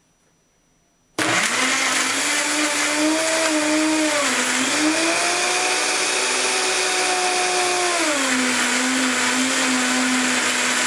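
Electric blender switched on about a second in, running loudly on fresh apple pieces. Its motor whine sags in pitch and recovers as it works through the fruit, then settles to a lower, steady pitch near the end.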